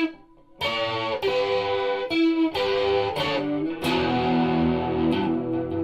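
Intro music: a guitar plays a short run of sharply struck notes and chords, and the last chord rings on from about four seconds in.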